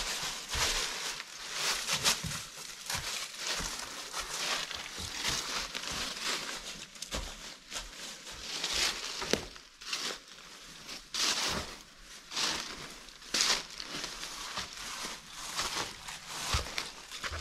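Footsteps crunching and rustling through deep, dry fallen leaves, in uneven steps.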